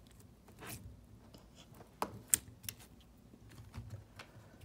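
Hands handling a lump of glitter slime and putting it into a clear plastic storage tub: a handful of short clicks and scrapes, the sharpest a little over two seconds in.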